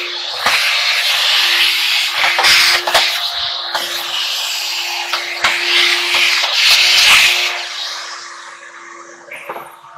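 Vacuum cleaner running with a steady motor hum, its hose nozzle sucking air and brushing and scraping over the dryer's metal top panel, with scattered knocks as the nozzle bumps the panel. The sucking rush falls away in the last couple of seconds while the hum carries on.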